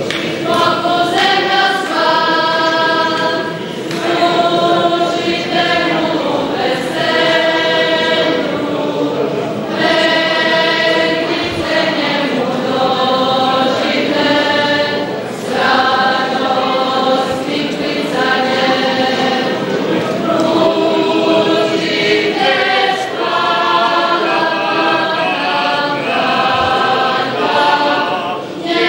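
Church choir singing a slow liturgical chant in chorus: phrases of held notes with a short breath between them about every five to six seconds.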